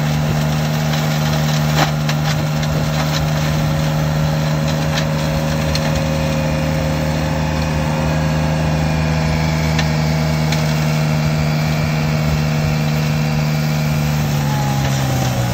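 Engine of a brush-clearing machine running steadily at constant speed, with a few light knocks; its pitch drops near the end as the engine slows.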